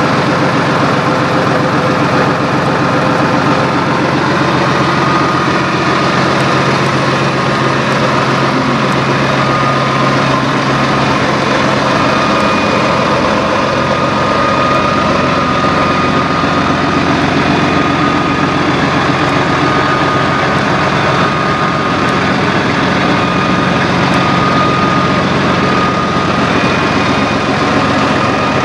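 Diesel engine of an older White Freightliner cabover semi-tractor idling steadily.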